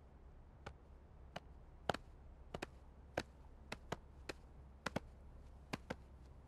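Footsteps of two people walking on a hard floor: a dozen or so sharp steps, about two a second, some falling close together, over a faint low hum.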